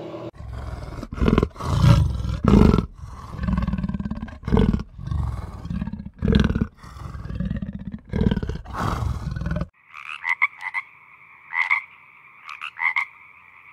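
A big cat growling and snarling in a run of loud, rough bursts. About ten seconds in it gives way to a frog croaking in short, rapidly repeated calls.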